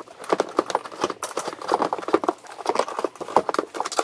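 Plastic airbox of a 2016 Yamaha Viper RTX snowmobile being wiggled and pulled free of the engine bay by hand: a quick, irregular run of knocks and scrapes.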